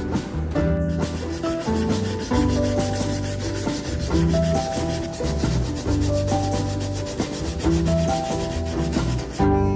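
Rapid abrasive rubbing strokes of sanding over background music with a bass line and a melody.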